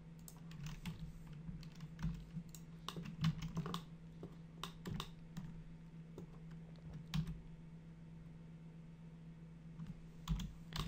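Scattered, irregular clicks of a computer keyboard and mouse, over a steady low hum.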